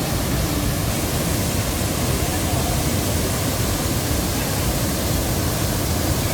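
Steady rushing roar of Nafakhum waterfall, a continuous loud wash of falling water with no breaks.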